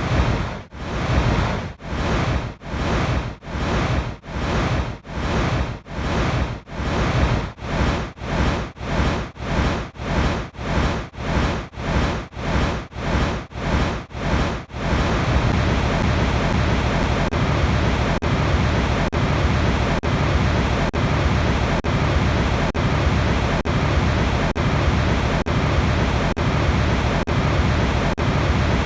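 Steady rushing water noise. For about the first half it drops out briefly and regularly, roughly one and a half times a second. After that it runs on unbroken.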